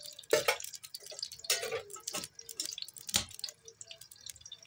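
Cooking oil heating in a nonstick frying pan, giving scattered small pops and ticks with a few louder crackles, as traces of moisture spit in the warming oil.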